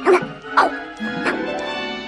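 Film soundtrack music with three short animal- or creature-like calls over it, each sweeping sharply in pitch.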